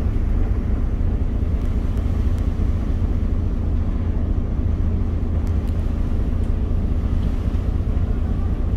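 Star Ferry under way, its engine giving a steady low rumble.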